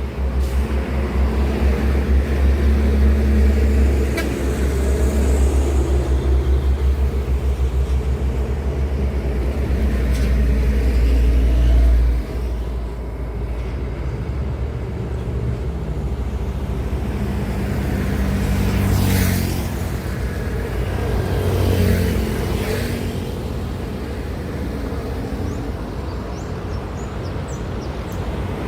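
Road traffic with heavy trucks running past: a deep engine rumble that drops away abruptly about twelve seconds in, then steadier traffic noise with a couple of vehicles swelling past.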